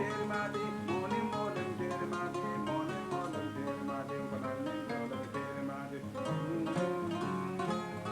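Kora, the West African harp-lute, plucked in a rapid, flowing stream of notes.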